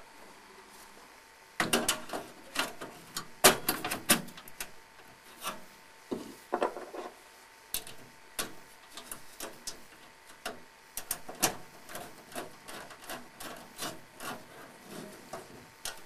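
A graphics card being fitted into a PC: irregular clicks, knocks and scraping of plastic and sheet metal as the card is pushed into the motherboard's AGP slot and its metal bracket is seated in the case. The handling starts about a second and a half in.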